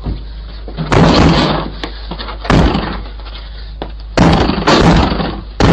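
Two men kicking hard at a closed front door: about five heavy bangs at uneven intervals, each rattling the door, which holds. The bangs are picked up by the doorbell camera's microphone.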